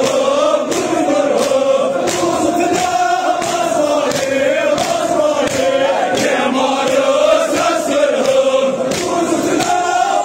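Large crowd of men chanting a Shia mourning lament (nauha) in unison over a regular beat of matam, hands striking chests about one and a half times a second.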